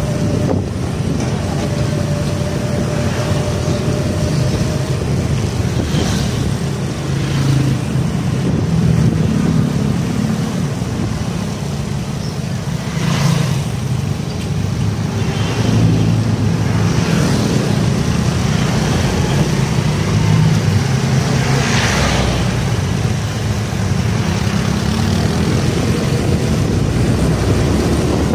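Motorcycle engine running steadily as the bike rides along in street traffic, a low drone with wind rushing over the phone's microphone and a few brief louder swells of noise.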